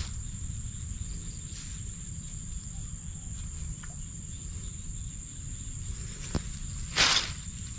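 Insects trilling steadily in a high, even tone over a low rumble. Near the end come a sharp click and then a brief, louder rustle.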